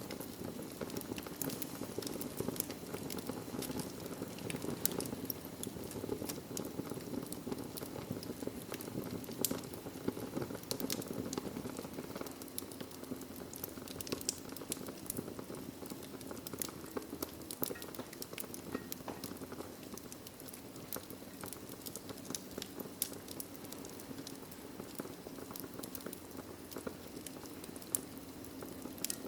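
Wood fire burning in a fireplace: a steady low rush of flames with frequent irregular sharp crackles and pops from the burning logs.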